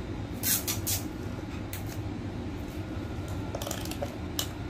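Short clicks and rustles of a hand handling a digital multimeter and turning its rotary selector dial, a cluster near the start and more near the end, over a steady low background hum.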